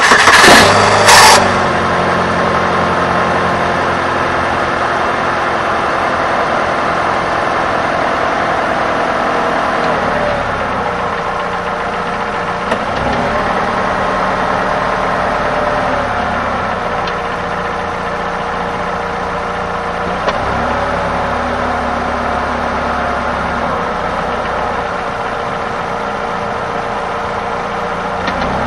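2003 Chevrolet Cavalier's 2.2 Ecotec four-cylinder engine cranked and started, catching within about a second and a half, then idling steadily; the idle settles slightly lower about ten seconds in. The owner suspects a bad engine mount.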